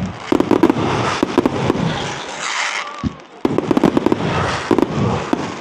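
Aerial fireworks bursting in a dense run of rapid crackles and pops. A single deep boom comes about three seconds in, then another crackling barrage.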